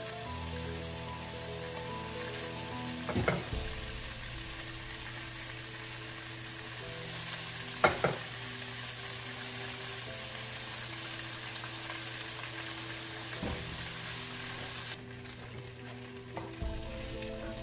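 Turkey bacon sizzling in a hot nonstick frying pan, a steady hiss of frying fat. Three sharp knocks against the pan, the loudest about eight seconds in. The sizzle drops off abruptly near the end.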